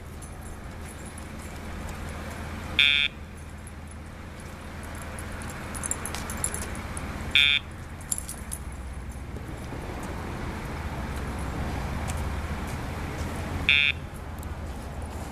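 Three short electronic beeps a few seconds apart, typical of the tone signal from a remote dog-training collar, over a steady low traffic hum.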